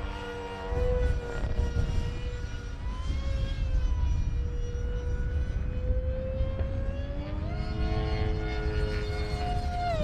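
Twin electric ducted fans of a Freewing SU-35 RC jet whining in flight: a high-pitched whine, fairly steady at first, that rises in pitch about three-quarters of the way through, over a low rumble.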